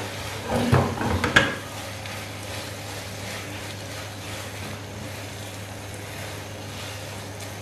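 Spatula stirring and scraping a thick shredded-chicken and white-sauce mixture in a nonstick frying pan, over a faint sizzle. The first second and a half is louder, ending in a sharp knock of the spatula on the pan, then the stirring goes on quieter over a steady low hum.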